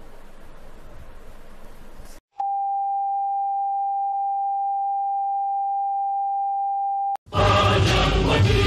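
TV static hiss that cuts off about two seconds in, followed by a steady single-pitched test tone for about five seconds. Choral music starts near the end as the station signs on.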